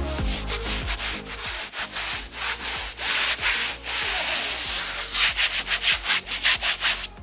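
Quick rubbing strokes of a hand smoothing canvas cloth down onto a car roof coated with contact cement. The strokes come faster, about four or five a second, near the end.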